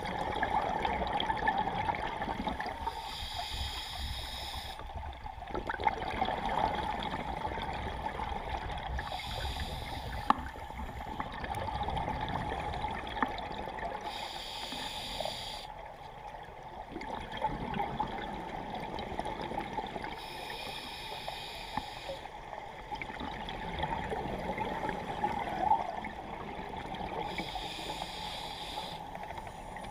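Scuba diver breathing underwater through a regulator: a hissing inhale about every six seconds, with bubbling exhalations in between.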